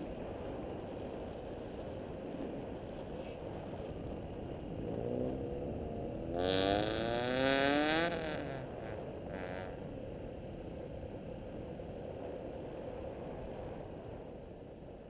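TaoTao CY150 motorcycle riding along with steady wind rush over the microphone. About a third of the way in, the engine note climbs steadily in pitch for about three seconds as the bike accelerates, and it is loudest just past halfway.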